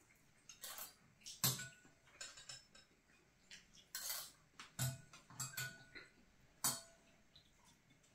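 Chopsticks and a spoon clinking and tapping against bowls and plates at a meal: irregular light clinks, a few with a short ringing tone, the sharpest about one and a half seconds in and again near the end.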